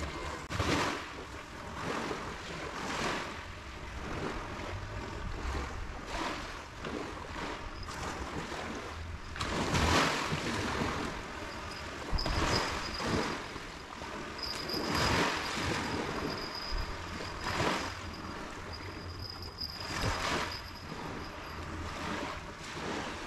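Wind gusting and small waves washing onto the shore, as a noisy rush that swells and fades every second or two. A faint thin high whine comes and goes through the middle.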